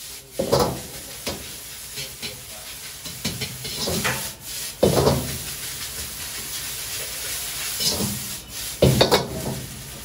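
Fried rice with egg sizzling in a wok over a gas flame while a metal ladle stirs and scrapes it. The ladle clanks sharply against the wok several times: about half a second in, around four to five seconds in, and twice near the end.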